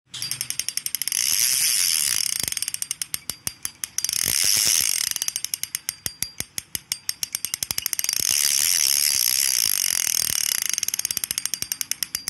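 A fishing reel's drag clicking rapidly as line is pulled out against it, with a high hissing zing that swells and eases three times. Between the runs the clicks come more slowly and separately.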